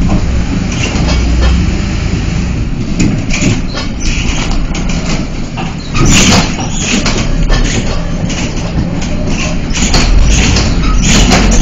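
Inside a bus: the engine rumbles steadily while the body and windows rattle and knock over rough, potholed pavement. About six seconds in the rattling gets suddenly louder.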